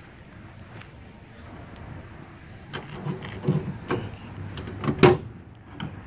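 A soft tonneau cover on a pickup bed being handled and opened: after a few quiet seconds, a run of clicks, rustles and sharp knocks, the loudest about five seconds in.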